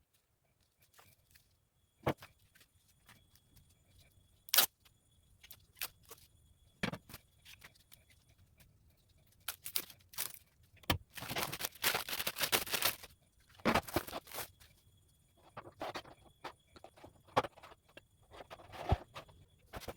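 Handling noises from unboxing a kitchen knife set: scattered sharp clicks and clinks, with a couple of seconds of rustling and scraping about halfway through.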